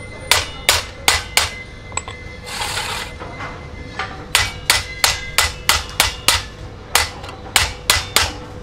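Hand hammer striking a steel truck clutch disc on a steel plate: quick sharp metallic blows, about three a second, that ring. The blows stop for about two seconds partway through, then resume at the same pace.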